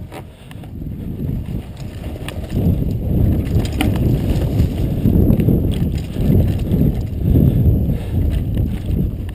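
Mountain bike riding along a dirt singletrack: tyres rumbling over the trail and wind buffeting the helmet camera's microphone in uneven surges, with a few sharp clicks and rattles from the bike.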